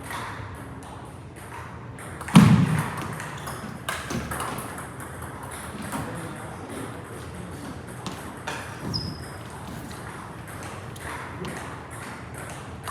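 Table tennis balls clicking off rackets and tables in a hall, a quick irregular series of sharp ticks. A single heavy thud about two and a half seconds in is the loudest sound.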